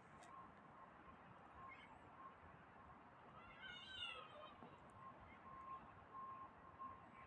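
A cat gives one faint, drawn-out meow about halfway through, rising then falling in pitch.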